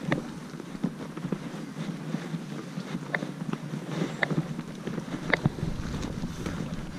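Wind buffeting the microphone of a camera carried on a walk, a steady low rumble and hiss, with a handful of short sharp clicks spread through it.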